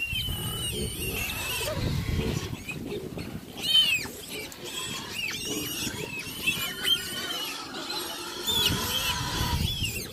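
Pigs squealing and grunting, hungry at feeding time: repeated short, high squeals, the loudest about four seconds in, over steady low grunting.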